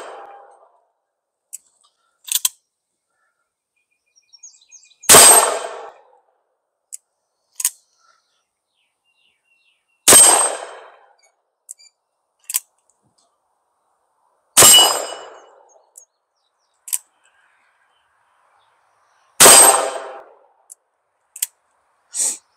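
Ruger Blackhawk .357 Magnum single-action revolver fired four times, slow and evenly spaced, about five seconds apart. Each shot has a short ringing tail. Between shots there are one or two faint clicks as the hammer is thumbed back to cock it.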